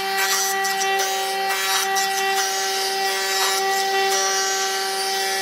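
Jointer running with a steady machine tone while a thick rough-sawn wooden block is fed across its cutterhead, the knives shaving the face with an uneven rasping hiss.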